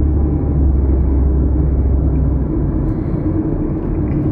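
Steady road and engine rumble heard from inside a moving car, with a deep low drone that eases a little about halfway through.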